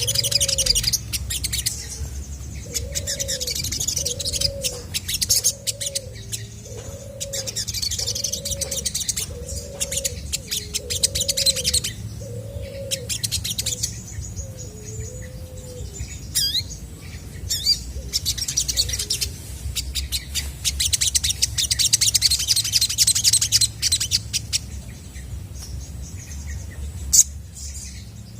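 Olive-backed sunbird singing, with fast high-pitched chirps and trills in bursts of a few seconds. In the first half a lower call repeats about ten times, roughly one note every second, over a steady low hum.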